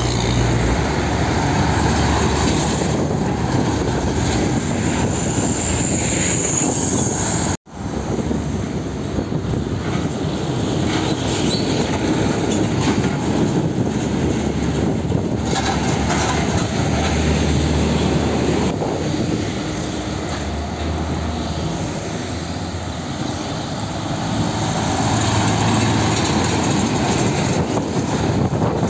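Heavy diesel trucks passing close by, a steady mix of engine noise and tyre rumble that swells and fades as each one goes past. The sound drops out briefly and suddenly about eight seconds in.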